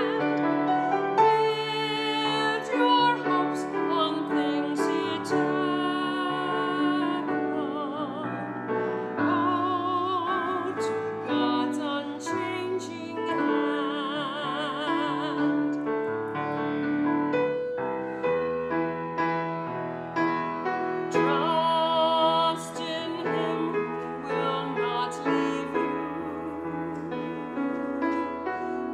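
A woman singing a solo with strong vibrato, accompanied by grand piano.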